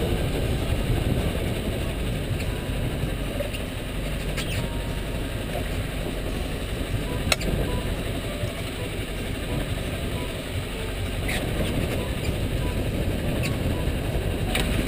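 Fishing reel being cranked as a hooked fish is reeled in to the boat, its gears and pawl clicking over a steady low rumble; one sharp click about seven seconds in.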